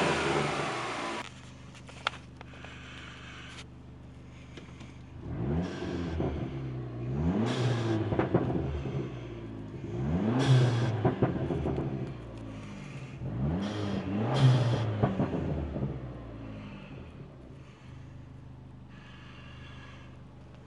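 Turbocharged 2.4-litre four-cylinder of a 2006 PT Cruiser GT idling and revved in four quick blips, each rising and falling, with a short hiss from the blow-off valve as the throttle closes. A louder rev fades out about a second in before the idle settles, and the engine idles steadily near the end.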